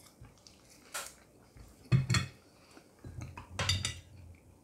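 A few short clinks and knocks of a plate and cutlery being handled at the table, about one, two and three and a half seconds in.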